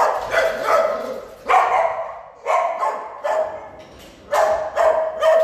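Dogs barking in a shelter kennel room: a loud, irregular string of about ten barks, sometimes two or three in quick succession, with short pauses between.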